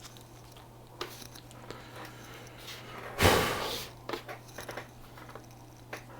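Small clicks and knocks of objects being handled on a workbench, with one loud, short rustling burst about three seconds in, over a steady low electrical hum.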